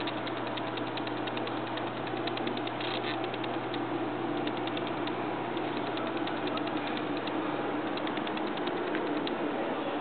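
Runs of rapid light mechanical clicking, many a second, stopping and starting, over a steady background hum.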